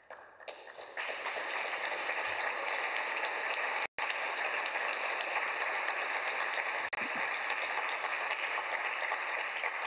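Audience applauding: dense, steady clapping that swells in about a second in and keeps up at an even level.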